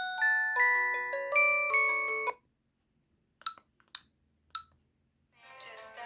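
An LG S5100 mobile phone's speaker playing a short polyphonic tone: a quick melody of stepping electronic notes that stops about two seconds in. Three short, identical keypad beeps follow about half a second apart, and near the end the next tone melody starts up.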